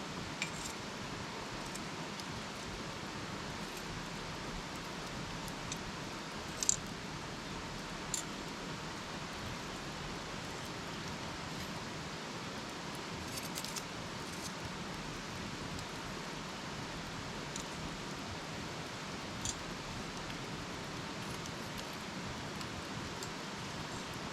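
Wood campfire burning: a steady hiss with occasional sharp pops and crackles, about half a dozen, the loudest a little over a quarter of the way in.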